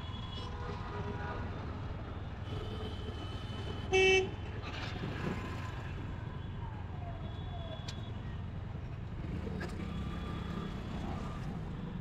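Road traffic, with a steady low rumble of engines and scattered vehicle horns. One short, loud horn beep sounds about four seconds in.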